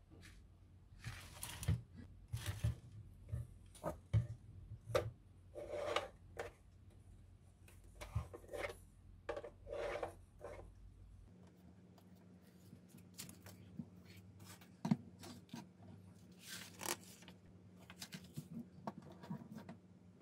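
Hands handling and fitting together the plastic tube sections of a NAOJ telescope kit: irregular rubbing, scraping and light clicks of plastic parts, with one sharper click about 15 seconds in.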